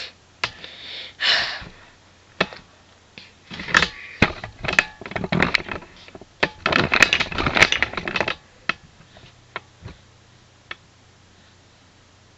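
Handling noise from a hand-held iPod and camera: irregular clicks, taps and rustling. It is busiest from about four to eight seconds in, then thins to a few faint ticks.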